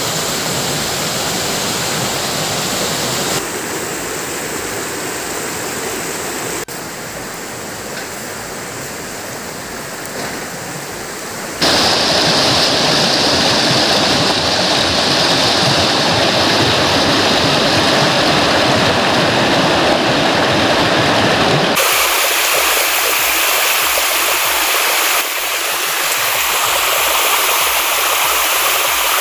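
Shallow rocky stream rushing over stones, a steady noise of flowing water that shifts abruptly in loudness and tone several times.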